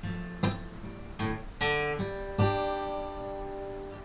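Acoustic guitar strumming chords: about five strums, the last one left ringing and slowly fading.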